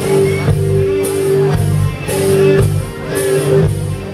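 Live band playing through an outdoor PA system, with electric guitar and held notes over a steady bass.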